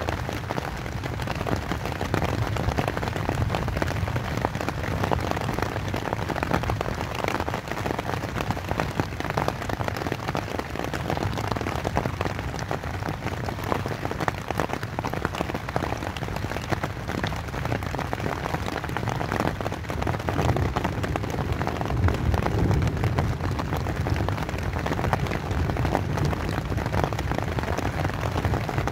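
Steady rain pattering on a tent's fabric, a dense patter of drops with a low rumble underneath.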